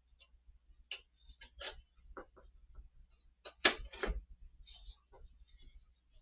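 Packaging being handled and pulled apart: a scatter of short clicks and scrapes, the loudest a sharp knock about three and a half seconds in.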